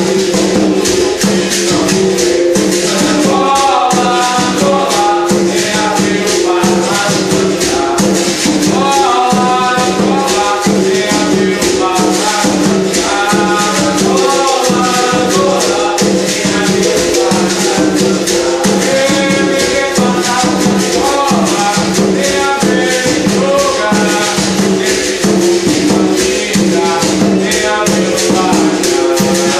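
Capoeira music: berimbau musical bows playing over the steady, fast rattle of caxixi shakers, backed by an atabaque hand drum.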